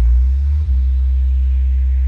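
Very deep, steady bass tone played loud through a truck-mounted DJ rig's speaker stacks during a sound check, shifting to a new note about half a second in.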